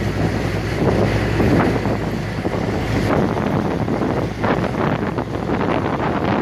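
Open military jeep driving at steady speed, its engine running with a steady low hum under heavy wind buffeting on the microphone.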